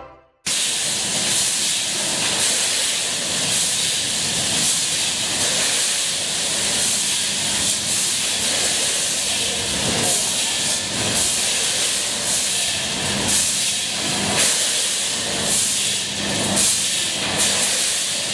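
Automatic bag-packaging line running: a multihead weigher feeding a vertical form-fill-seal quad-seal bagging machine. A constant air hiss is broken by repeated short puffs and knocks over a steady low hum.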